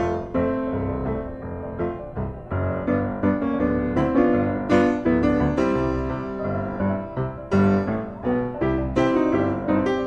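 Background piano music: a steady run of struck notes.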